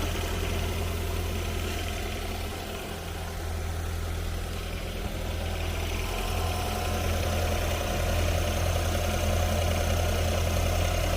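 Car engine idling steadily just after a jump start, left running to recharge a battery that went flat from the lights being left on. A faint higher whine joins about halfway through.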